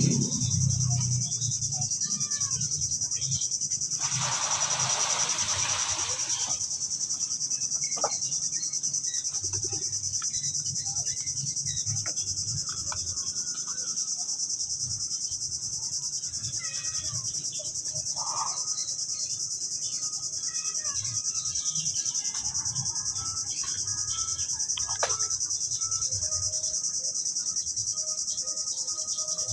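Steady high-pitched drone of insects, with scattered faint clicks and knocks and a rush of noise lasting about two seconds, starting about four seconds in.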